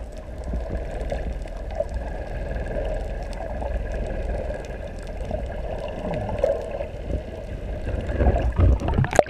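Sea water sloshing and gurgling around a camera held just below the surface, heard muffled through the water over a steady low rumble. The sloshing grows louder and choppier near the end.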